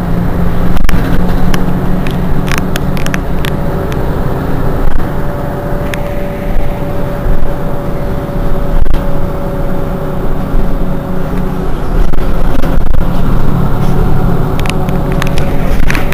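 Mercedes-Benz Citaro G C2 articulated bus engine idling steadily while the bus stands at a stop, a constant low hum. A faint steady whine comes in about a third of the way through and fades a few seconds later, with scattered short clicks throughout.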